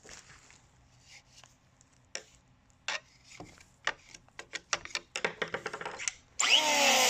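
Scattered sharp clicks and taps that come faster and faster, then, about six seconds in, an electric planer cuts in suddenly and loudly: a harsh whir whose whine falls in pitch as it bites into the epoxy.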